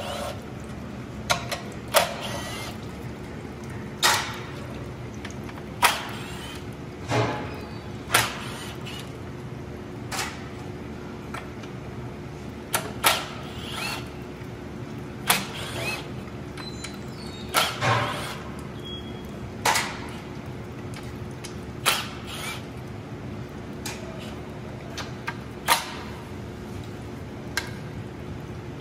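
Short, sharp knocks and clicks, one every second or two at uneven spacing, from hand and tool work on a 6L90 automatic transmission's oil-pan bolts, over a steady low hum.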